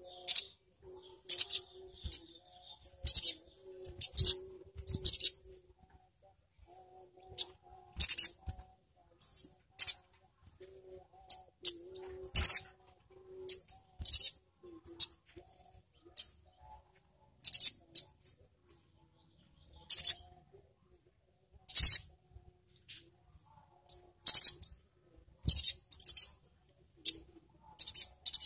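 Male olive-backed sunbird (sogok ontong) giving sharp, very high-pitched chirping calls in short bursts. The bursts come irregularly, about every one to two seconds, with brief gaps between them.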